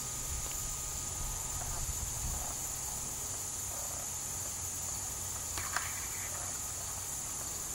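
Steady high-pitched insect chorus, crickets or katydids, over a low rumble, with a faint click a little before the end.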